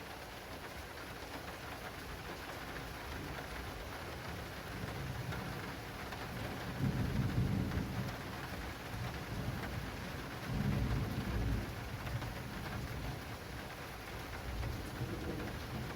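Heavy rain drumming steadily on an acrylic rain canopy during a thunderstorm. Low rolls of thunder swell up twice, about halfway through and again a few seconds later.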